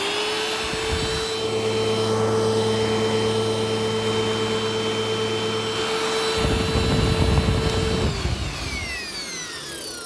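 Upright bagless vacuum cleaner running: its motor whine comes up to a steady pitch and holds. A low rumble comes about two-thirds of the way through. It is switched off at about eight seconds and spins down with a falling whine.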